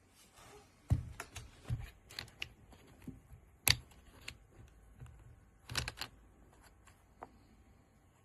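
Irregular clicks and knocks, several with a dull thump, the loudest about a second in and near the middle, as of a hard object being handled and set down on a desk.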